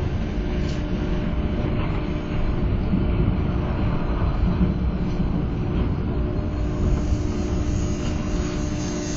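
Running noise of the Düsseldorf SkyTrain suspended monorail car in motion, heard inside the car: a steady low rumble with a constant hum.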